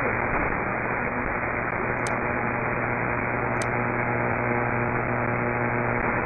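Shortwave receiver static in AM mode on 2430 kHz, where the third harmonic of Radio El Espectador's 810 kHz signal is sought. A steady hiss with a faint low hum through it, and no programme audible. Two faint clicks about two and three and a half seconds in.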